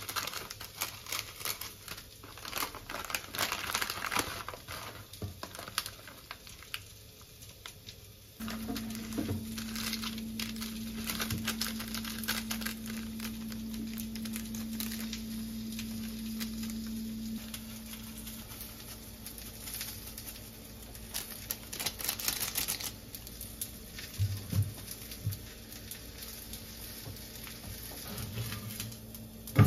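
Crinkling and rustling with light crackly clicks, as something is handled by hand. About eight seconds in, a steady electric hum with a low tone switches on and keeps running under it.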